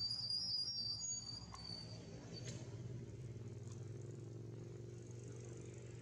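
A steady low engine hum, as of a motor vehicle passing at a distance, fading out at the end. Over it, for the first two seconds, a high, thin whine.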